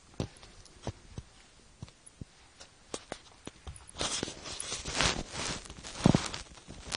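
Rabbits moving about and nudging a red rubber Kong chew toy on a fabric-covered floor. Scattered small clicks and taps give way to rustling and scuffling about four seconds in, with one sharp thump about six seconds in.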